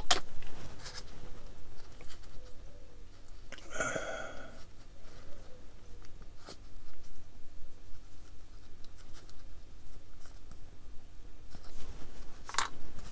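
Small plastic model-kit parts being handled and pressed together by gloved hands: scattered light clicks with faint scraping and rustling between them, the sharpest clicks at the start and near the end.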